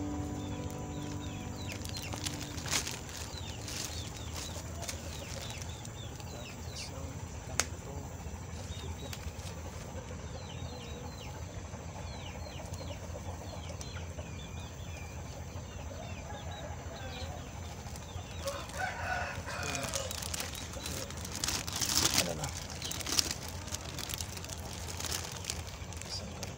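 Clear plastic sheet crinkling and rustling as it is handled, loudest in a run of crackles about twenty seconds in. Chickens cluck in the background.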